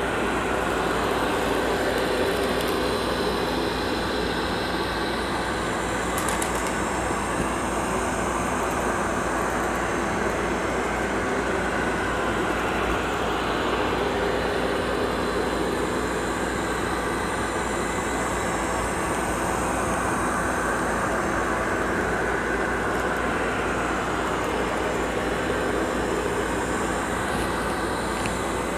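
Amarey A800 robot vacuum running steadily with its suction motor and brushes working over carpet, picking up scattered kitty litter.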